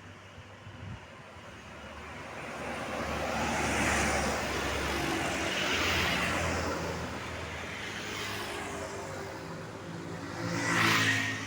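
Road traffic passing close by, vehicles going past one after another. The loudest pass comes near the end.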